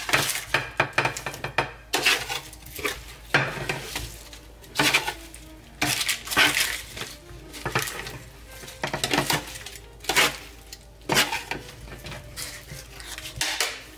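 Metal tongs clinking and scraping against a metal sheet pan as roasted potatoes are scooped and tipped onto a plate, in irregular bursts of clatter.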